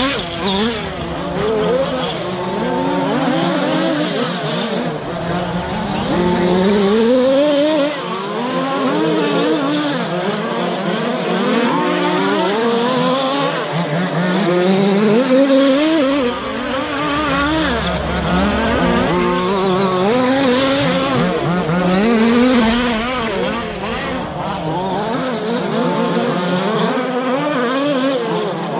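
Several radio-controlled short course trucks racing, their motors repeatedly rising and falling in pitch as they accelerate out of corners and ease off into them.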